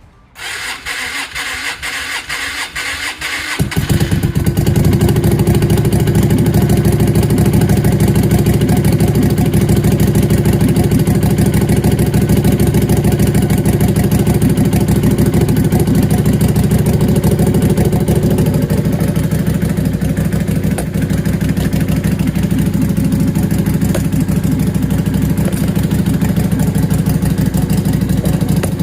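Freshly rebuilt Lifan V16 LF250-H motorcycle engine being cranked on the starter for about three and a half seconds, then catching and running steadily through its curved horseshoe exhaust on its first start after the rebuild.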